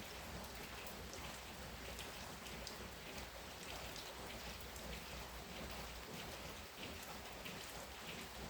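Heavy rain falling steadily, a dense hiss with scattered individual drops splashing on hard surfaces.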